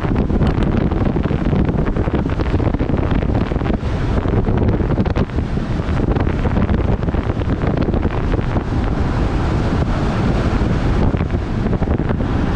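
Steady, loud wind buffeting the microphone at highway speed, rumbling and crackling, with vehicle and road noise underneath.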